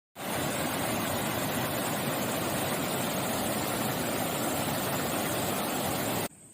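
Steady rushing water noise, even and loud, that cuts off suddenly near the end, leaving a much quieter hiss with a faint high whine.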